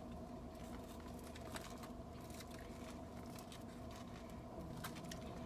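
Faint eating sounds: a plastic fork clicking and scraping in a foam takeout container of chef salad, with soft chewing, over a steady hum.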